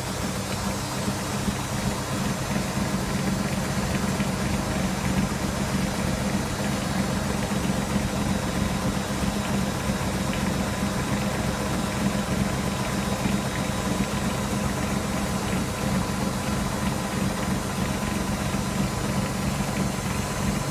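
Electra AWF683 front-loading washing machine running with a steady low hum and rumble.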